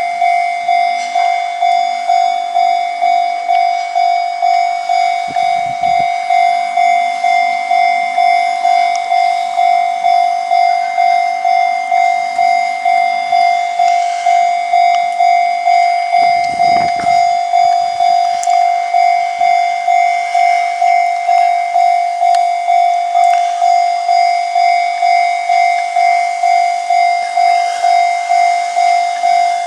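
Japanese railway level-crossing alarm bell ringing with a steady, evenly repeating ding. Brief low rumbles pass about 6 and 17 seconds in.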